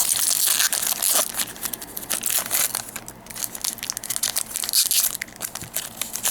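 A Magic: The Gathering booster pack's foil wrapper being torn open and crinkled by hand: a dense run of crackling rustles, louder near the start and again about five seconds in.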